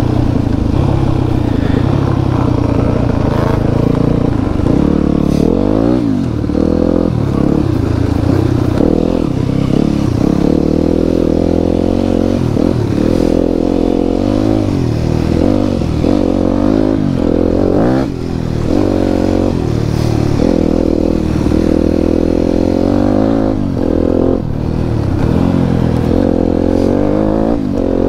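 Enduro motorcycle engine under load, its revs rising and falling over and over as the bike is ridden off-road, with a few sharp knocks.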